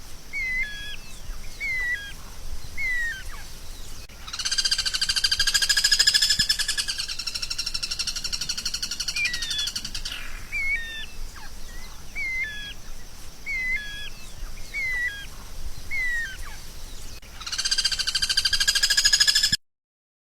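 A songbird calling: short hooked chirps about once a second, twice broken by a louder buzzing trill that lasts several seconds. The sound cuts off abruptly near the end.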